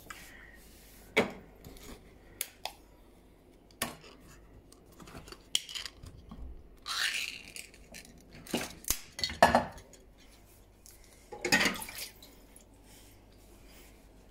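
Scattered knocks and clinks of dishes and tins being handled on a kitchen worktop, the louder clatters coming in the second half.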